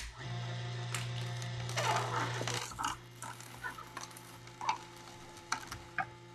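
Omega MM900 HDS cold-press juicer running with a steady motor hum while its auger crushes a celery stick, with irregular crackling and snapping crunches from the stalk. The hum is louder for the first two and a half seconds, then settles lower.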